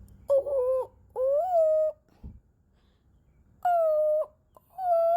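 A crow calling close by: four drawn-out cries, each under a second long, coming in two pairs.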